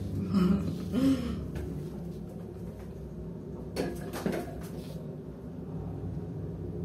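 Old traction elevator heard from inside the car: a steady low hum, with two sharp clicks about four seconds in.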